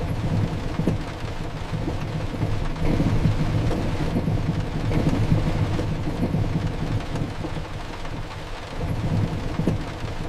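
Steady heavy rain with a low, rolling thunder rumble that swells and eases.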